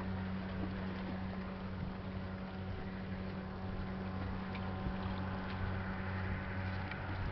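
The tugboat Manitou's engine droning steadily as it pushes a barge, a low, even hum with steady overtones over a haze of wind and water noise.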